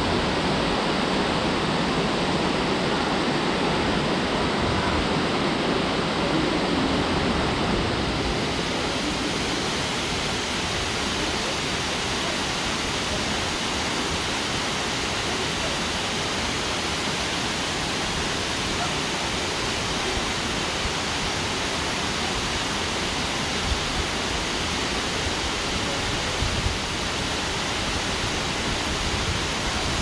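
Waterfall pouring into a pool: a steady rush of falling water, turning a little brighter and slightly quieter about eight seconds in.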